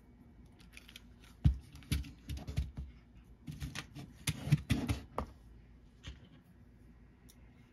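Small clicks, taps and light knocks from handling a circuit board with green plastic screw-terminal blocks and working a small screwdriver into it. The clicks come in a scattered run from about a second and a half in to about five seconds in, with the sharpest near the start of that run.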